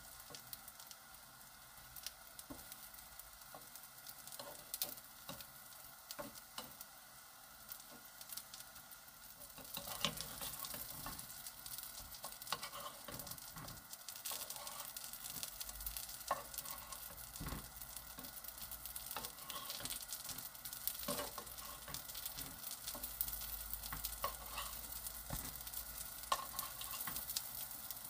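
Shiitake mushroom jeon, stuffed with seasoning, sizzling and crackling in oil in a frying pan on low heat. The sizzle grows louder about ten seconds in, with a few light clicks scattered through it.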